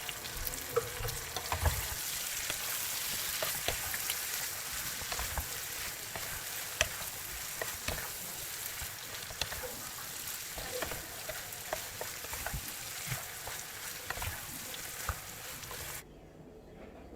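Food sizzling in a hot pan while a spatula stirs it, with frequent clicks and scrapes of the spatula against the pan. The sizzling stops abruptly near the end.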